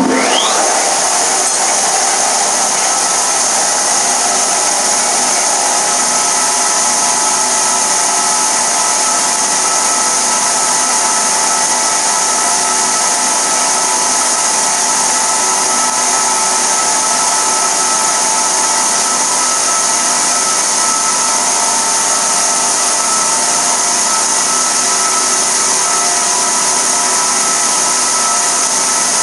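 Grinder with a large spinning wheel running steadily while a welded stainless steel rod is held against it to smooth down a TIG weld. It makes a loud, even whine with hiss; the whine rises briefly in the first second, then holds steady.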